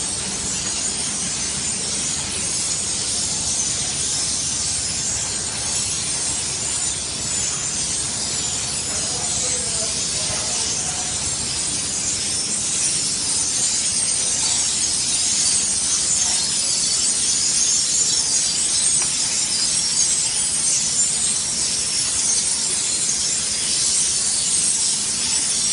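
Steady machine noise of an automatic flatbread dough make-up line running, mostly a high hiss over a low mechanical rumble, growing a little louder about halfway through.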